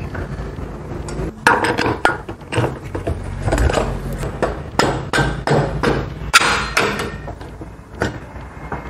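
Irregular metal knocks and clunks, about a dozen, as a motorcycle front wheel is fitted into the fork and its axle worked through the hub, the loudest knock a little after the middle.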